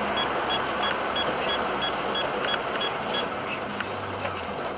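Road and engine noise inside a moving car, with a rapid series of short high electronic beeps, about three a second, that stops about three seconds in.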